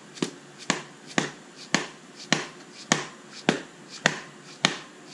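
Orange soft-faced mallet tapping the IMS bearing cover on a Porsche Boxster 996 engine: about nine sharp knocks at a steady pace of roughly two a second, driving the slightly misaligned cover into place.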